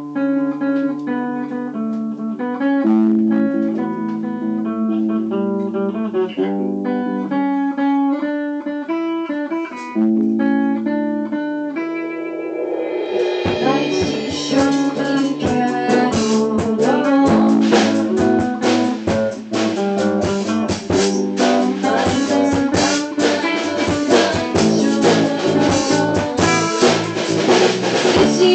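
A live band's instrumental intro: guitar plays alone at first, then the drum kit and the rest of the band come in about halfway through and keep a steady beat.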